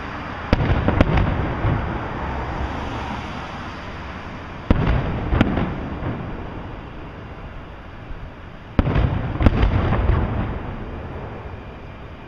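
Aerial fireworks shells bursting: three pairs of sharp bangs about four seconds apart, each followed by a long rumbling tail.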